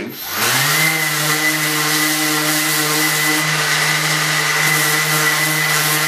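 Electric random orbit sander switched on, its motor spinning up in rising pitch within the first second, then running steadily while sanding a thin laser-cut plywood piece.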